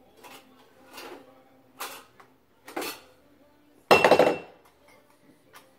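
Glass jars and metal canning lids being handled by a baby, clinking and knocking. There are four light knocks about a second apart, then a loud clattering clank with a brief ring about four seconds in.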